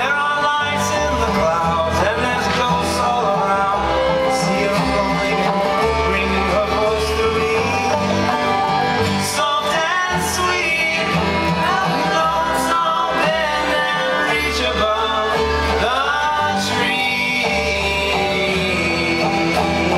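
Live acoustic folk band playing: voices singing over strummed acoustic guitar and a plucked upright bass.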